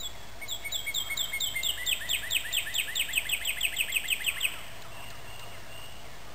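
A songbird singing one song: a series of short down-slurred whistled notes that speeds up into a rapid trill and stops abruptly after about four seconds.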